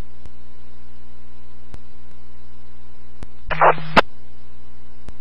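Police radio scanner channel between messages: a steady hiss and hum with faint ticks. About three and a half seconds in, a radio keys up for half a second and drops off with a sharp click.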